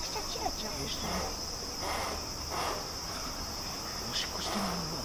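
Steady, high-pitched insect chorus, with a few faint, short sliding calls beneath it.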